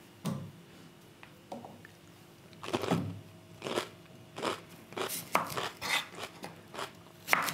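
A chef's knife cutting fresh cucumber on a wooden cutting board: crisp cuts that knock on the board. A few fainter strokes come first, then about two a second from about three seconds in.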